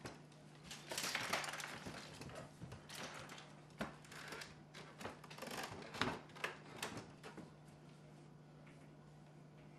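Faint rustling, scuffling and clattering of a person moving and handling things, a run of irregular knocks and scrapes that stops after about seven and a half seconds. A low steady hum runs underneath.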